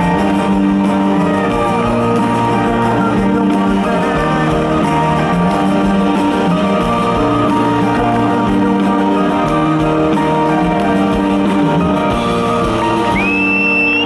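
Live rock band playing in a large hall, led by a strummed acoustic guitar holding sustained chords. Near the end a shrill whistle from the audience rises over the music.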